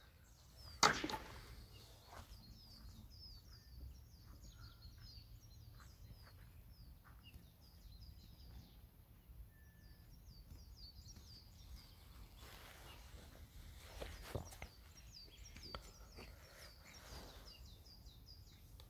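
Small songbirds chirping in quick series of short high notes, over a low rumble of wind on the microphone. A brief rush of noise about a second in is the loudest moment.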